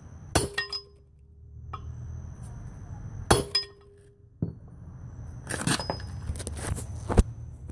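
Sharp metal clanks as a hammer strikes a steel driver seating the last wheel stud in a GM 14-bolt full-floater hub and drum; the first strike rings on for about a second. Two more clanks come about three seconds in, then a run of lighter metal clinks as the steel tools are handled.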